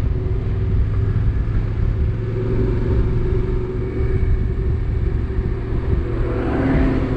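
Adventure motorcycle engine running at a steady cruising speed on a dirt road, with a low rumble of tyres and wind. Near the end a second engine note swells briefly as the bike passes a road roller.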